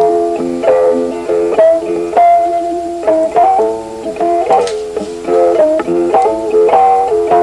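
Background music: a plucked string instrument playing a melody of quick, separate notes.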